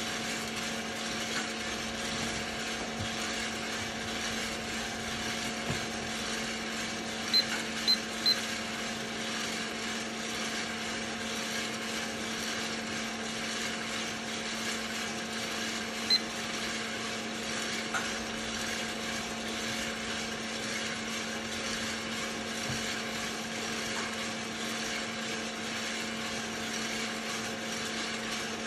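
Hottop electric drum coffee roaster running mid-roast: a steady motor hum and whir as the drum turns the tumbling beans. A few sharp ticks stand out, three close together about seven to eight seconds in and one more around sixteen seconds.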